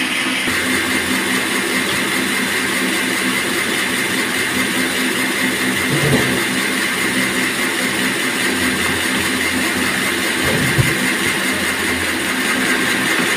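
Band sawmill running steadily: a continuous machine drone with a constant high tone over it, and a couple of brief low knocks, about six seconds in and again near eleven seconds.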